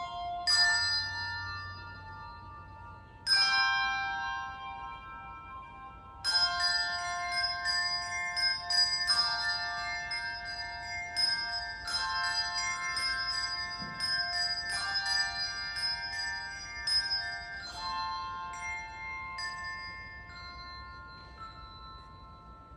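Handbell choir ringing a piece: a struck chord about half a second in and another about three seconds in, then a steady run of ringing notes from about six seconds, thinning out and left to ring away near the end.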